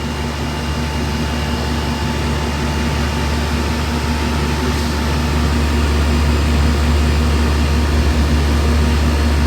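Outdoor condensing unit of an older R22 central air conditioner running: steady compressor hum under the rushing of the condenser fan, growing slightly louder toward the end.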